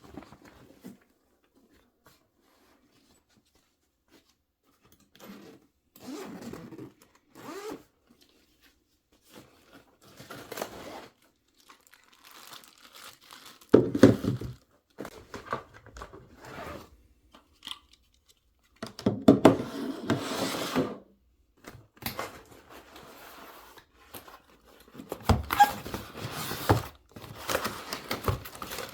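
Packaging being opened and handled by hand: irregular bursts of tearing, crinkling and scraping, with a few knocks.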